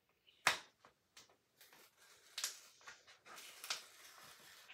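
Paper sticker sheet rustling and crinkling in the hands as a sticker is picked at and peeled off, with a few short sharp clicks, the loudest about half a second in.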